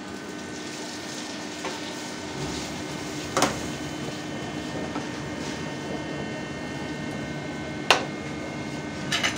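Gnocchi dropped into a pan of hot butter and sizzling gently over a steady kitchen hum, with sharp metal knocks of pan and utensils about 3.5 s in, about 8 s in and a short rattle near the end.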